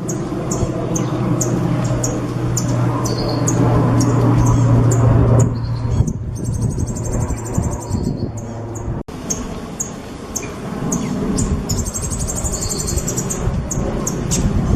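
Songbird singing: repeated sharp, high chirps, broken twice by a long, very fast high trill of the kind bird keepers call a 'tembakan'.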